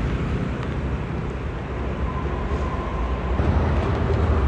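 Street traffic, mostly motorcycle engines running close by, getting louder toward the end.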